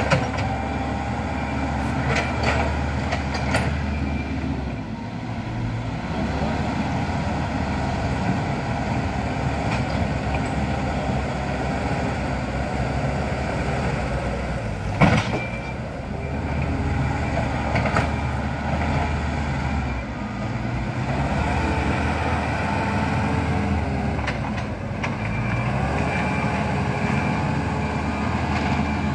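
Diesel earthmoving machinery working on a gravel road: engines running steadily, their pitch dipping and recovering every several seconds as they take load. There are a few sharp knocks, and a loud clank about halfway through.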